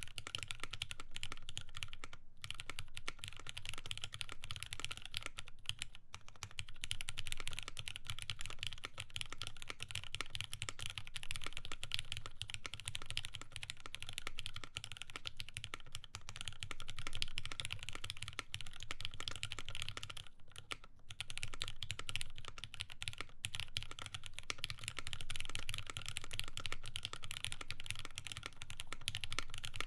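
Continuous fast typing on a mechanical keyboard with lubed Cherry MX Black linear switches, polypropylene plate and GMK doubleshot keycaps: a dense stream of soft key clacks with a couple of brief pauses.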